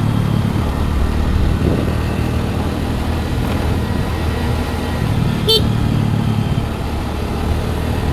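Scooter engine running steadily while riding, a low even hum. About five and a half seconds in, a brief sharp high-pitched sound.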